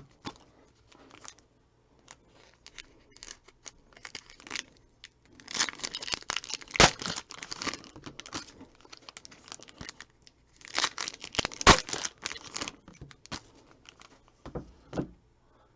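Wrappers of trading-card packs being torn open and crinkled by hand, in three main bursts of tearing with quieter rustling between.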